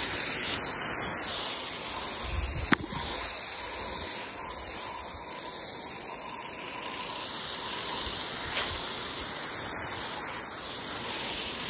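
Chapin hose-end sprayer spraying a water-and-fertilizer mix onto grass: a steady hiss, with one sharp click about three seconds in.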